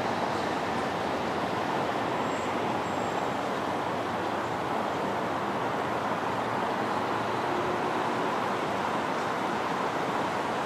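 Steady rushing city background noise, like the hum and hiss of traffic, with no single event standing out.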